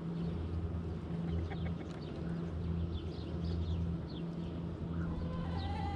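Chickens clucking, with a call about five seconds in, while small birds chirp and a steady low hum runs underneath.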